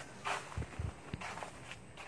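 Footsteps walking along a path, a scuffing step about every 0.7 seconds, with a few dull low thumps about halfway through.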